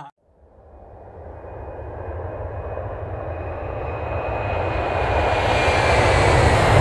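Aircraft engine sound effect for Batman's Batwing arriving, growing steadily louder from silence as it approaches, with a deep rumble under a thin whine that slowly drops in pitch.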